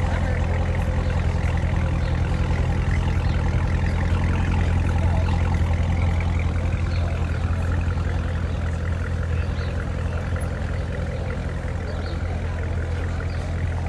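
2016 Chevrolet Corvette Z06's supercharged 6.2-litre V8 on its stock exhaust, idling with a steady deep burble and no revving.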